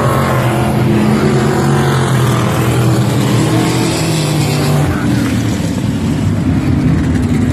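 Several winged sprint car engines running loud and steady at racing speed around a dirt oval, with cars passing close by in the second half.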